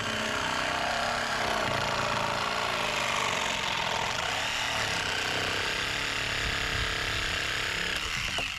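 A small engine-driven machine running steadily with dense, rapid low rumbling; it cuts off suddenly near the end.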